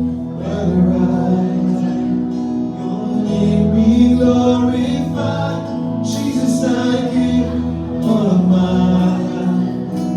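Live worship song: voices singing over a band, with held notes and a pulsing bass line.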